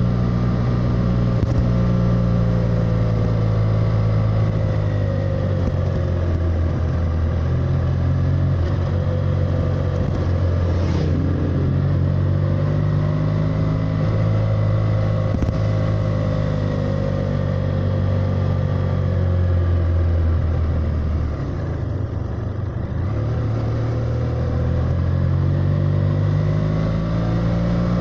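BMW F800R's 798 cc parallel-twin engine running under way, its pitch slowly rising and falling. The note drops and quietens briefly about three quarters of the way through, then climbs again.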